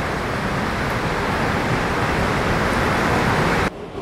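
The River Dart, swollen after heavy rain, with fast water rushing over and around rocks: a steady rushing of water that cuts off suddenly near the end.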